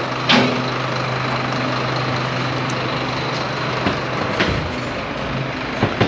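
A motor vehicle's engine idling with a steady hum, with a few short knocks over it.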